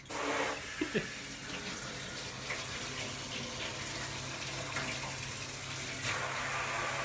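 Kitchen tap running steadily into a stainless-steel sink, the flow getting louder about six seconds in.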